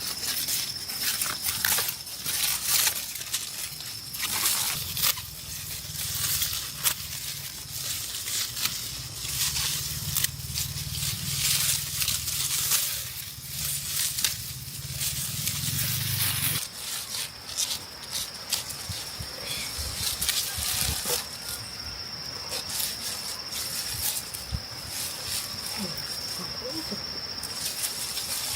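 Repeated rustling and crackling of dry plant stalks being handled, over a steady high insect drone; a low hum underneath stops suddenly about 16 seconds in.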